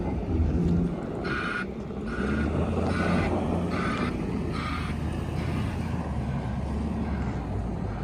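Snow plow truck's engine running with tyres rolling through snow as it drives past. About five evenly spaced beeps sound during the first half.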